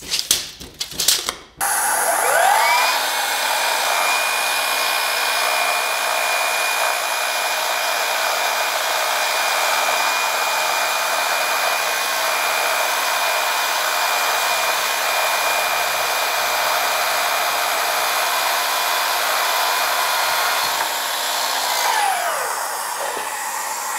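Milwaukee FUEL cordless miter saw with its dust-extraction vacuum running: the motor spins up with a rising whine about two seconds in, runs steadily under a loud, airy hiss, and winds down with a falling whine a couple of seconds before the end.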